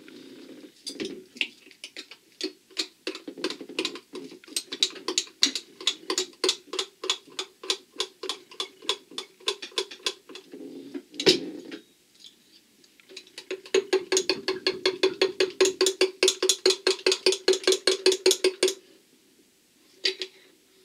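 Metal spoon stirring melted plastisol in a glass Pyrex measuring cup, clinking against the glass about four times a second, with one louder knock about eleven seconds in and faster, louder clinking in the second half. The stirring keeps the reheated plastisol melting evenly.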